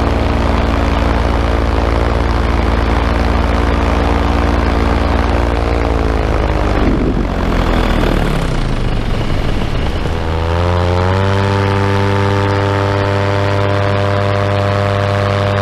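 Paramotor engine and propeller running steadily in flight. About six seconds in the pitch drops, with a brief rushing noise. About ten seconds in the engine revs back up and holds a steady, higher pitch.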